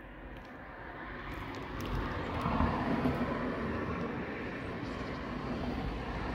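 Rumbling vehicle noise that grows louder over the first two seconds and then holds steady.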